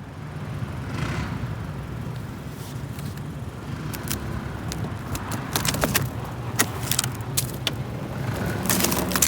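A motor vehicle engine running with a steady low hum. From about four seconds in, sharp crackling clicks come in over it.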